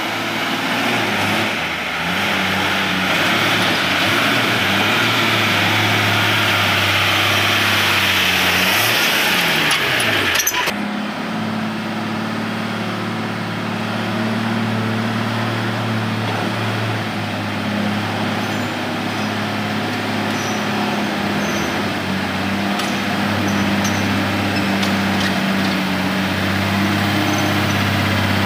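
Tata SE1613 truck's diesel engine idling steadily, with a brief dip in pitch about nine seconds in and a sharp click shortly after.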